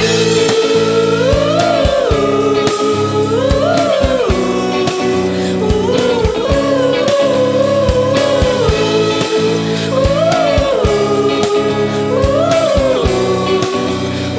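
Garage-punk rock song from a studio recording: guitars and drums under a melody that slides up and down in repeated phrases.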